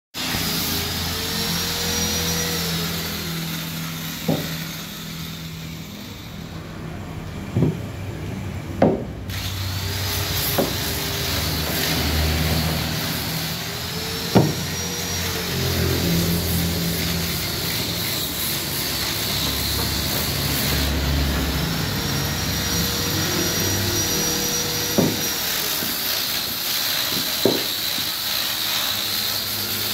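A power woodworking machine runs in long bouts, its whine rising, holding and falling in pitch over a steady workshop hum. About seven sharp wooden knocks come through it as solid-wood stool parts are handled and fitted together.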